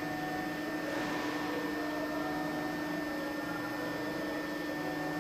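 Steady electrical hum with a constant low tone and a fainter high tone over a hiss, unchanging and with no distinct clicks or knocks.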